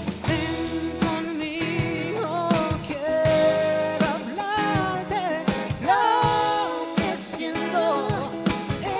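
Music with singing: long held, wavering sung notes and slides over a steady beat.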